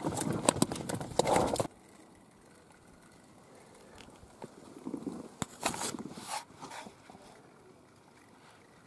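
Freshly caught trout flopping on a boat floor, a rapid run of sharp knocks and slaps that stops abruptly under two seconds in. After that it is quiet, with a few scattered clicks and knocks.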